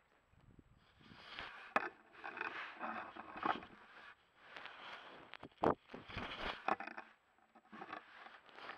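Irregular rustling and scraping close to the microphone, with a couple of sharp knocks: a bobcat rubbing its body against a trail camera.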